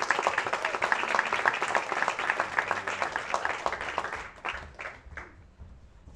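Audience applauding, dense clapping that thins to a few last scattered claps and dies away about five seconds in.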